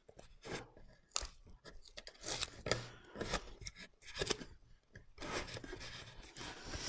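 Plastic squeegee rubbing and scraping over self-adhesive vinyl film on a wooden frame in short, irregular strokes, smoothing the film down onto the wood.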